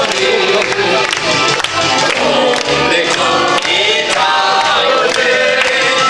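Live amplified music: a man singing into a microphone over keyboard backing with a steady beat, with the audience clapping along.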